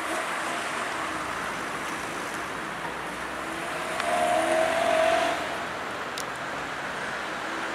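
Street traffic, with cars running by steadily. One vehicle passes closer and louder about four seconds in, its pitched engine note fading again after about a second.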